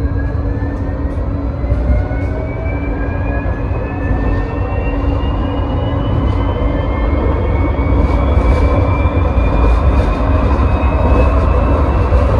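Electric tram accelerating along its track: a whine from the traction motors climbs slowly in pitch over a steady low rumble from the wheels on the rails, growing a little louder toward the end, heard from inside the cab.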